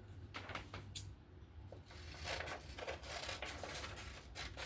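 Faint handling noises: a few light clicks and soft rustling as things are picked up and set up for a cutting test of the knife edge, over a steady low hum.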